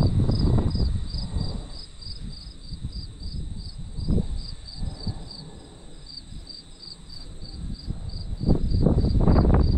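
Crickets chirping in a steady, even pulse about three times a second. Bursts of low rumbling noise at the start and near the end are louder than the chirping.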